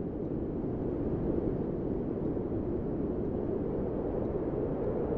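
Steady low rumbling noise, even throughout, with no distinct events.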